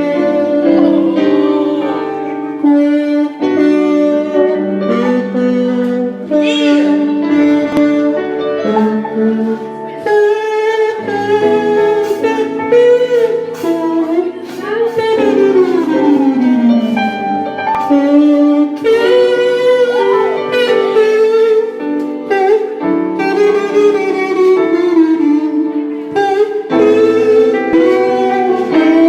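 A man imitating a trumpet with his mouth, playing a jazzy melody with slides and pitch bends over held accompanying chords. A long downward slide comes about halfway through.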